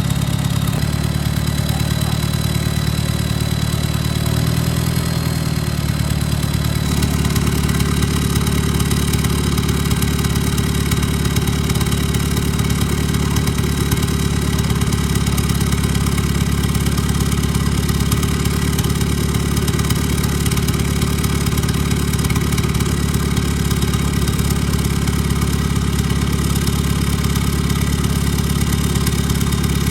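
Off-road 4x4's engine running steadily at a near-constant speed, its note shifting slightly about seven seconds in.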